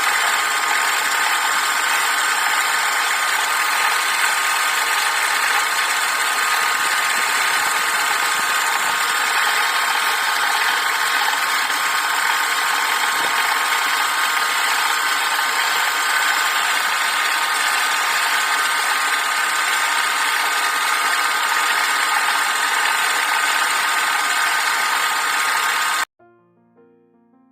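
Woodworking lathe running steadily, a constant motor whine. It cuts off abruptly near the end, and faint piano music follows.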